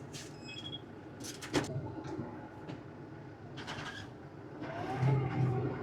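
Tractor engine running steadily under load, heard from inside the cab while slashing, with cab rattles and knocks. The engine gets louder about five seconds in.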